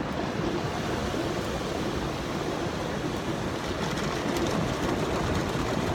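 Automatic car wash running, heard from inside the car's cabin as a steady rushing noise.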